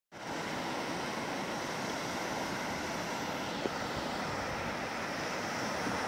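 Steady surf of small waves breaking along the shore, an even rushing noise, with a single brief click about three and a half seconds in.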